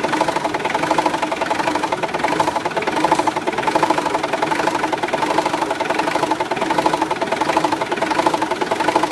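Mitsubishi 4D56T 2.5-litre turbo diesel idling roughly and unevenly, its loudness rising and falling. The mechanic takes the varying idle RPM for a timing fault, suspecting a mechanical problem at the crank sensor pickup plate.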